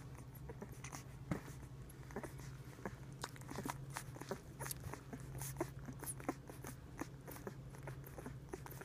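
Newborn Siberian Husky puppies suckling at their mother's teats: quick, irregular smacking clicks, several a second, growing busier about three seconds in.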